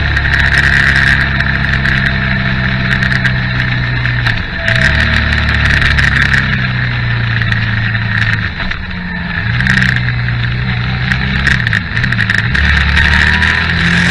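Motorcycle engine running under way, its note dipping briefly and climbing again about four, nine and twelve seconds in as the revs change, over a steady rush of wind.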